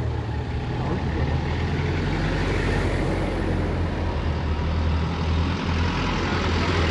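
A vehicle engine running steadily, a constant low rumble with a broad hiss of noise above it.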